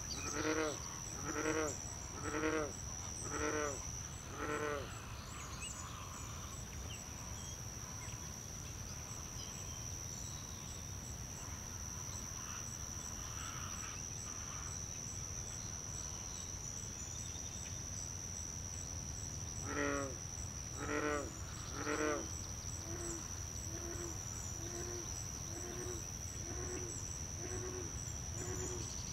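Young great blue herons on the nest calling: a series of harsh, bleating calls about a second apart, then a pause, then three louder calls followed by softer, quicker calls near the end.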